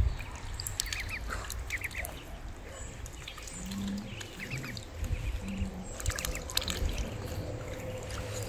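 Domestic ducks and ducklings calling: high, short peeps in quick twos and threes, and a couple of low, soft calls midway.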